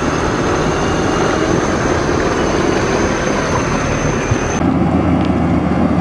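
Off-road 4x4 working through deep mud: steady engine and tyre noise. About four and a half seconds in there is an abrupt change to a deeper, heavier engine rumble.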